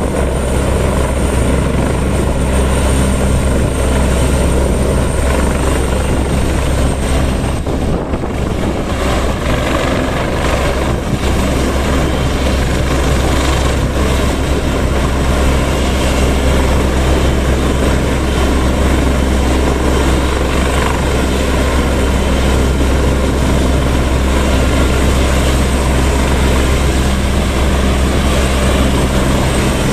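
Airbus EC175 helicopter running on the ground with its rotors turning, a loud, steady beat of rotor and turbine. A high thin whine sits over it for the first several seconds, then fades out.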